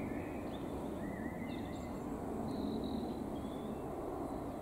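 Small birds chirping in short phrases over a steady low outdoor rumble.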